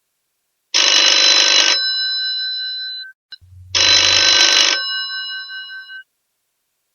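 Old telephone's bell ringing twice, about three seconds apart: each ring is about a second of rapid clatter, then the bell's tone fades out over a second or so.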